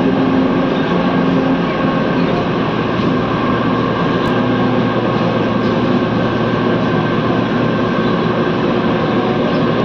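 Mumbai Monorail train running, heard from inside the passenger car: a steady rolling hum of the rubber-tyred train on its beam, with several steady whining tones over it.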